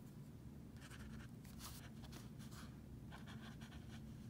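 A Stabilo Point 88 fineliner pen scratching on paper in several short, sketchy strokes, faint.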